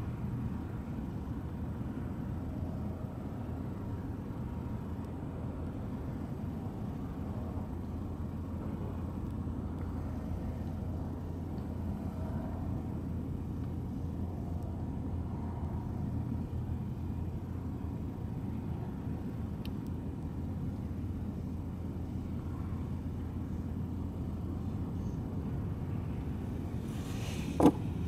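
Steady low background rumble, with one short sharp click about half a second before the end.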